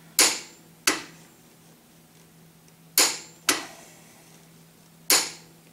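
Click-type torque wrench snapping off at its 72 ft-lb setting on a motorcycle's swing arm pivot lock nut, five sharp metallic clicks in pairs and then one more. Each click signals that the set torque has been reached.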